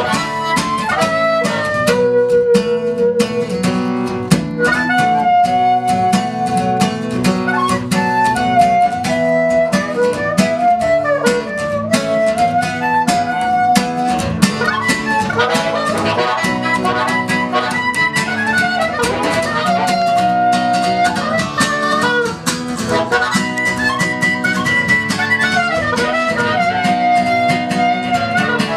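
Acoustic band playing an instrumental passage: steady strummed guitar under a lead melody of long notes that bend and waver in pitch.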